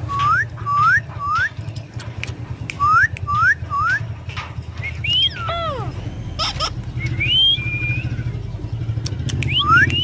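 Alexandrine parakeet whistling: short rising whistle notes in quick runs of three, a long falling glide about halfway, then a rising note held steady. A steady low hum runs underneath.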